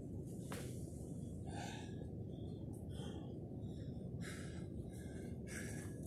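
A man breathing hard after a set of legless rope climbs, with short gasping breaths about once a second.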